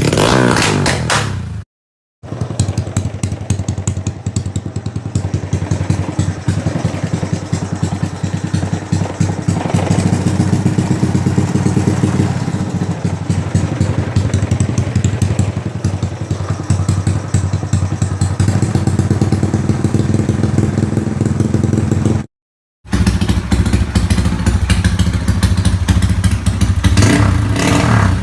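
Small motorcycles with loud aftermarket racing exhausts, in three separate takes. Each exhaust runs with a rapid, sharp popping beat and is revved up and down in short blips. There are abrupt cuts about 2 seconds in and about 22 seconds in.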